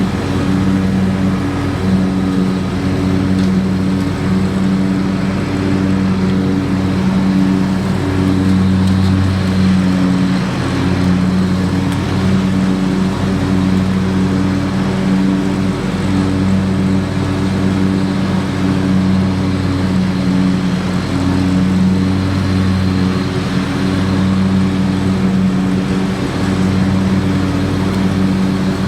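John Deere X350 riding lawn tractor's engine running steadily at a constant pitch while it drives and mows.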